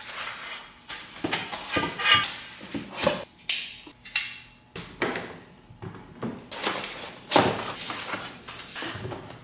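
Unpacking from cardboard boxes: cardboard and paper rustling and scraping, with irregular sharp knocks as a laptop stand is lifted out and handled on the desk.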